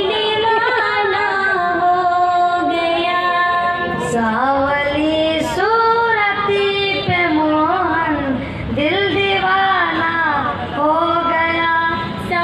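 A woman singing into a microphone, holding long notes that bend and slide up and down, with short breaths between phrases.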